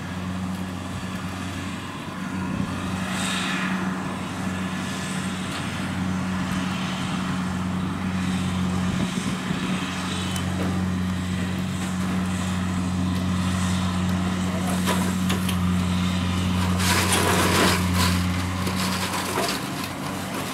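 Kubota DC-70 combine harvester running steadily in a rice field, its diesel engine giving an even low hum, with a louder rushing, rattling noise swelling about seventeen seconds in.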